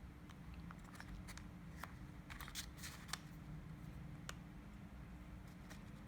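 Faint crinkling of folded origami paper with scattered small clicks, as the paper corners are curled under with tweezers; the rustling is busiest a little over two seconds in.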